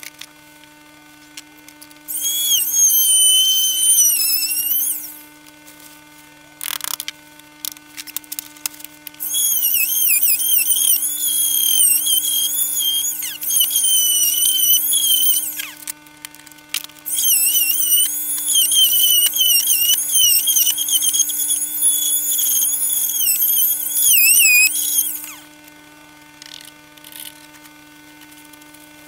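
A handheld electric power tool cutting along a line through a caravan's wall panel, in three long bursts of high whining whose pitch wavers as it bites, with short pauses and a few knocks between them. A steady low hum runs underneath.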